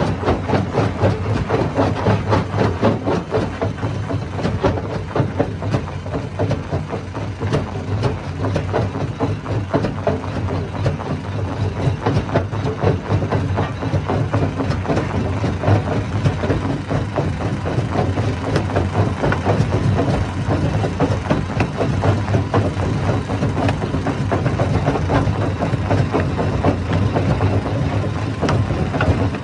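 Hammer stone crusher running under load: a steady low drone with a dense, irregular clatter of rocks being smashed and knocking through the machine.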